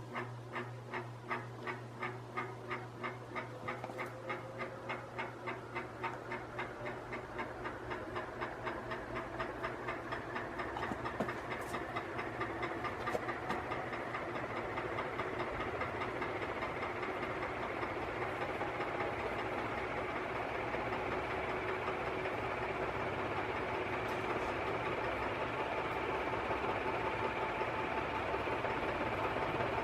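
Canarm 48-inch three-blade industrial ceiling fan spinning up. A rhythmic pulsing, about one and a half a second at first, quickens and blends into a steady whir by about halfway, under a slowly rising whine. The motor had seized and, the owner says, still grinds even after heavy oiling.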